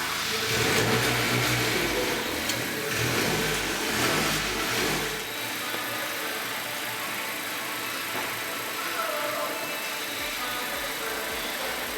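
Honda Accord engine running at low speed while the car is manoeuvred onto a lift. The low rumble is stronger for the first five seconds or so, then falls away.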